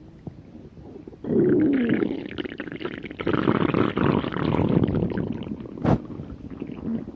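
A hungry stomach growling: a faint low gurgle, then loud churning rumbles and gurgles from about a second in, with one gurgle falling in pitch, fading toward the end. A single short, sharp click comes near the end.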